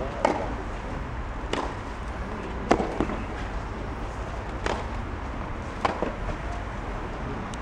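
Tennis ball struck back and forth by racquets during a rally: about five sharp hits, roughly a second or more apart, the loudest a little under three seconds in, over a low steady hum from the crowd in the stands.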